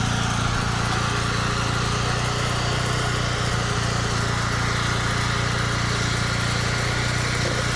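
Portable generator's small engine running steadily at constant speed, a low even hum.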